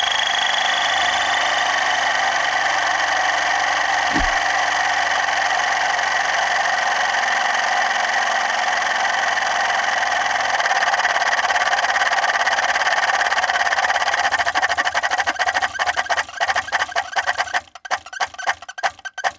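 Failing rear air-suspension compressor on a 2014 Cadillac Escalade ESV running with a loud, steady buzz that breaks into a fast pulsing near the end before cutting out. The pump is far noisier than it should be, a sign the compressor is failing.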